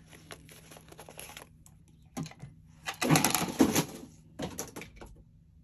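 Paper banknotes rustling and crinkling as a fan of dollar bills is handled and sorted, with small crisp snaps at first and a louder burst of rustling about three seconds in.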